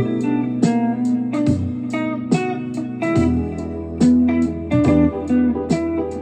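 Guitar music: a run of plucked notes over sustained low bass notes.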